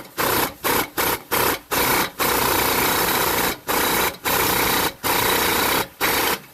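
A power tool run in repeated bursts with short pauses, working a seized exhaust bolt that has been heated and soaked in penetrating oil to free it.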